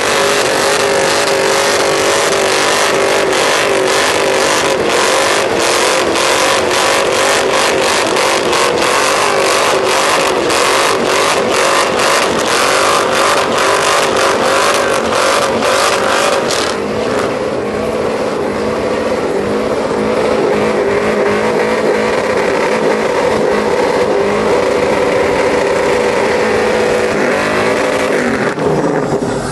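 Pickup truck engine held at high revs during a burnout, with the spinning rear tyres adding a hiss of noise over it. The engine pitch wavers throughout; about two-thirds of the way in the hiss thins out, and near the end the revs drop away.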